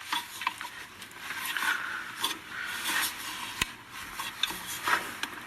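Hands and tools working on a scuba scooter's motor mount: irregular scraping and rubbing with scattered clicks and taps, one sharp click about three and a half seconds in.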